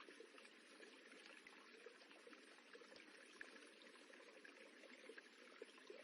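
Faint running water rippling steadily, with small splashes and droplet flecks throughout.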